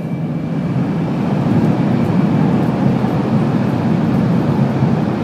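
Steady running noise of a Shinkansen bullet train travelling at speed, heard from inside the passenger car, getting a little louder about a second and a half in.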